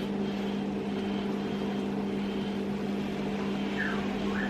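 A steady low mechanical hum with a faint background noise, holding an even level throughout. Two faint short chirps come just before the end.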